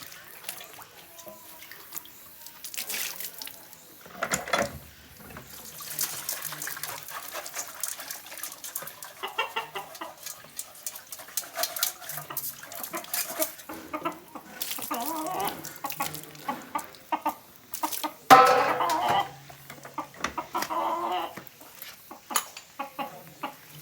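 Chickens clucking, with one louder call about three-quarters of the way through, over intermittent splashing and scraping as a bowl is washed by hand.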